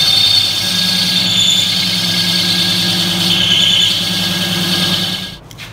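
Metal lathe cutting steel: the tool bit squeals at a high pitch as it faces the end of a broken pinion shaft, over the steady hum of the lathe's motor. The cutting stops suddenly near the end.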